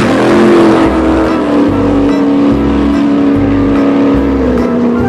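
A vehicle engine sound, a steady pitched hum that sinks slowly in pitch, over a low pulse repeating a little faster than once a second.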